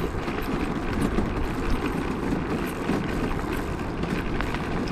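Zero 10X electric kick scooter riding up a packed-dirt road: a steady rumble of tyres and ride noise with scattered small clicks from stones and rattles.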